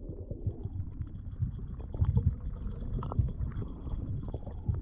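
Muffled underwater sound from an action camera held below the surface: an irregular low rumble with small knocks as water moves around the camera, and a faint steady high tone.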